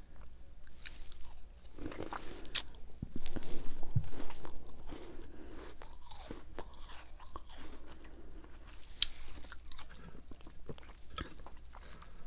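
A person biting and chewing frozen ice and frost, with irregular crisp crunches and crackles, loudest a few seconds in.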